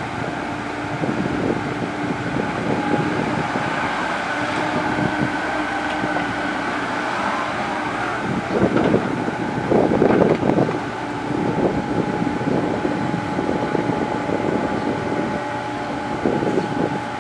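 Komatsu PC70 hydraulic excavator working: its diesel engine runs steadily with a whine from the hydraulics, and grows louder and rougher about nine and ten seconds in.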